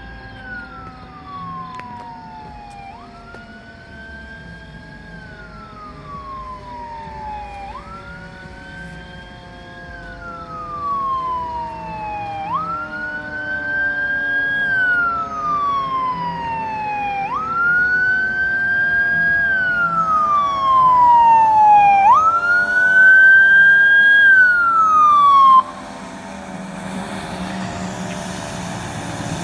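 Fire engine's Federal Signal electronic siren sounding a slow wail, sweeping up and falling back about every five seconds and growing louder as the truck approaches, with a lower tone sliding slowly down underneath. The wail cuts off suddenly about 25 seconds in, leaving the noise of the truck drawing near.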